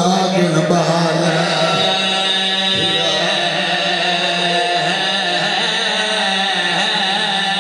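A man's voice chanting a slow, melodic recitation through a microphone, holding long drawn-out notes.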